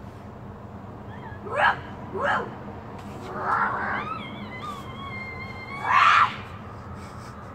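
Children yipping and whining like puppies: a few short high yips, a drawn-out wavering whine about four seconds in, and a louder yelp near the end.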